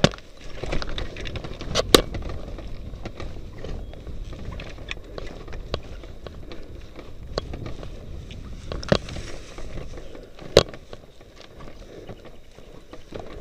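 Handling noise from a landed hang glider being moved at walking pace: a low uneven rumble with scattered sharp knocks and rattles from the frame and camera mount, the loudest about two seconds in and about ten and a half seconds in.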